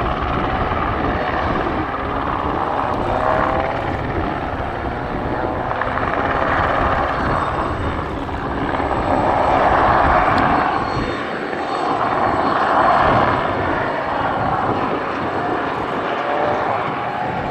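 A helicopter flying overhead, its rotor and turbine noise a continuous wash that swells and fades several times, loudest about two-thirds of the way through.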